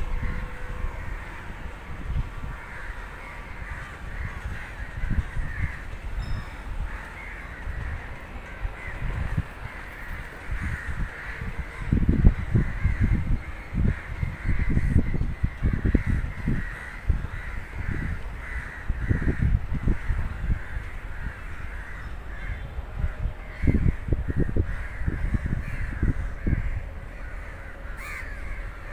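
Crows cawing continuously, over the low rumble and irregular knocks of a slow train rolling across the points, which grow heavier about twelve seconds in.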